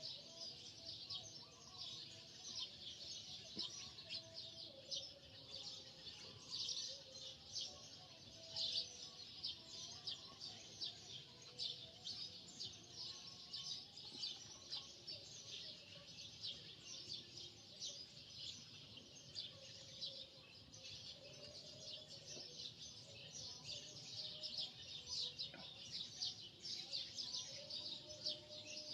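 Faint, continuous chirping of many small birds, a dense irregular chatter of short high chirps.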